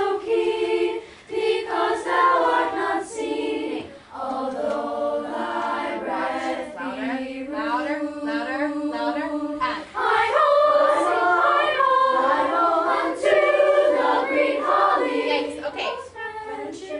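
A choir singing a passage with marked changes in dynamics, louder from about ten seconds in.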